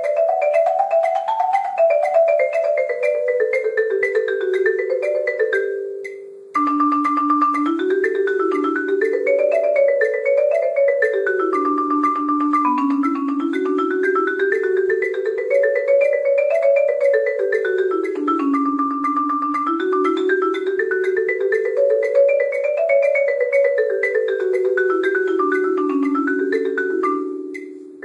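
Yamaha concert marimba played with mallets: a fast, even stream of notes in scale runs that climb and fall, both hands moving together in two parallel lines. The playing breaks off briefly about six seconds in and again just before the end.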